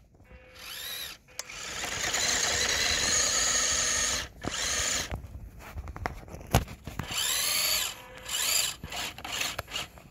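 Electric motor and gearbox of a WPL 1/10 Suzuki Carry R/C truck whining in bursts, the pitch rising and falling with the throttle, as the rear-drive truck spins its wheels in snow and struggles for grip. A sharp click partway through.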